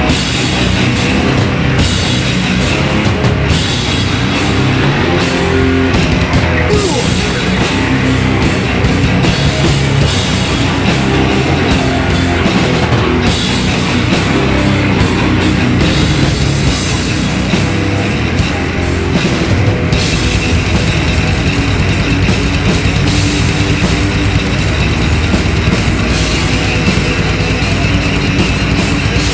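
Heavy metal band playing live: two guitars, bass and drum kit at full volume, the part changing about two-thirds of the way through.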